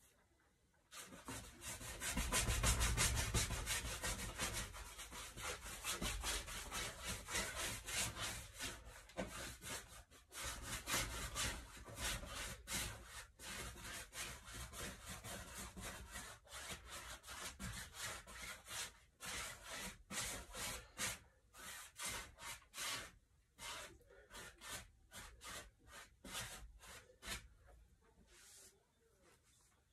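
A hand rubbing across a large stretched canvas, working the paint in a quick, steady run of scraping strokes. The strokes start about a second in and stop shortly before the end.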